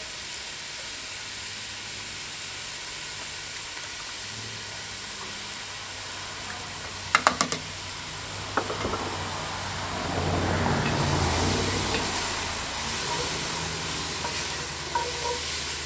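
Sliced onion, capsicum and carrot sizzling steadily in oil in a cast iron camp oven. A short rattle of knocks comes about seven seconds in, and from about ten seconds the sound grows louder as the vegetables are stirred in the pot.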